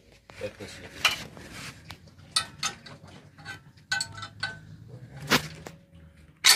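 Metal hand tools and fittings clinking and tapping on a Nissan 2500 cc marine diesel's injector lines while air is bled from its fuel system; the engine is stopped. There are light taps, some ringing briefly, and sharper knocks a little after one second, a little after five seconds and at the very end.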